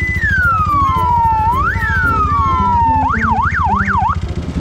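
An electronic siren wails, rising and then falling slowly twice, then switches to a fast yelp warbling up and down for about a second near the end. Underneath it is the low, steady running of idling trail motorcycles.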